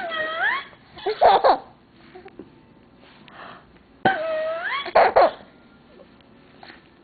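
A baby laughing in two bouts of short, breathy giggles. Each bout follows a high squeal that rises in pitch.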